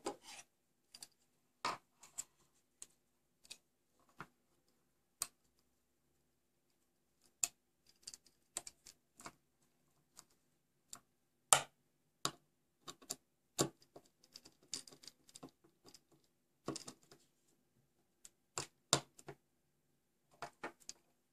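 Irregular small clicks and taps of a screwdriver and wire ends being worked into the screw terminals of a small dimmer board, some a little louder than others. A faint steady hum runs underneath.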